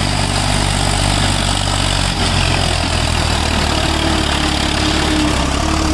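Diesel engine of heavy farm or earthmoving machinery running steadily; its low note shifts about two seconds in, and a faint whine comes in a couple of seconds later.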